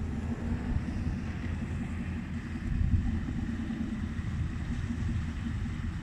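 A motorboat's engine running as it crosses the harbor, a low steady drone, with wind buffeting the microphone.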